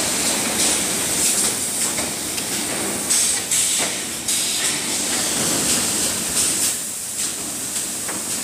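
Empty square sheet-metal tins clanking as they are set down and pushed along a steel worktable, several separate knocks, over a steady high hiss of factory machinery.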